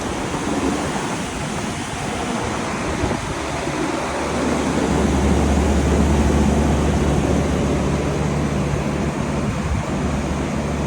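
Blueway swimming-pool air-conditioning unit running after its compressor repair: a steady rush of air, joined about halfway through by a low, steady hum.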